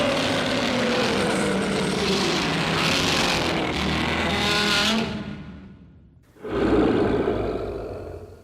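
Kaiju roar sound effect from the Heisei Godzilla films: a long, loud, shrieking cry with sliding pitch that fades out about five to six seconds in, followed by a shorter second cry that dies away near the end.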